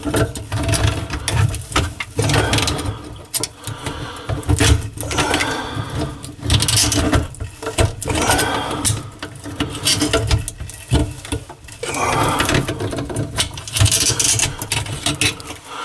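Hand tool clicking, rattling and scraping against the stuck pop-up drain nut under a bathroom sink, in a fast irregular clatter as the nut is forced round.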